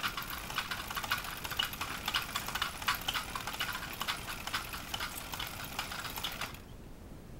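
Hand-cranked Pathescope Baby 9.5 mm film projector running, its mechanism making a rapid, steady clatter of clicks as the film is cranked through. The clatter cuts off suddenly near the end as the cranking stops.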